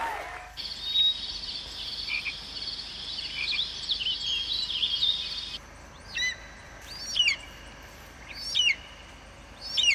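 High-pitched animal calls: a run of chirps and trills through the first half, then one sharp call repeated four times, a little over a second apart.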